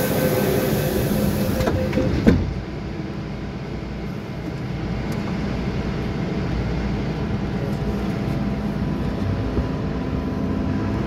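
MTR M-Train electric multiple unit: a single sharp thud of the doors shutting about two seconds in, then a steady electric hum and rumble as the train starts pulling away from the platform.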